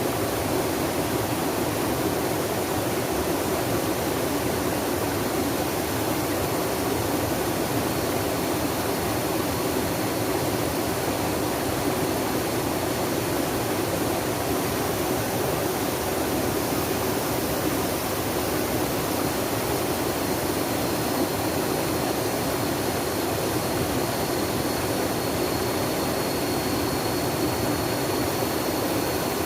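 Flowing water rushing steadily in an even, unbroken wash.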